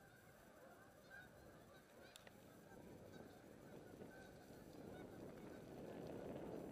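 A flock of geese honking in a continuous crowded chorus, faint at first and growing louder near the end.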